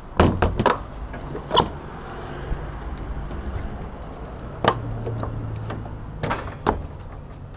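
A series of sharp knocks and thuds, three in quick succession at the start and a few more spaced out later, over a low steady hum.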